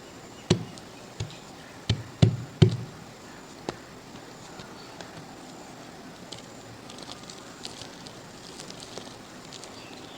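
Dried mud cracking and crumbling under pressure. About six sharp cracks come in the first four seconds, the loudest a little over two seconds in. Faint, scattered crackling follows later on.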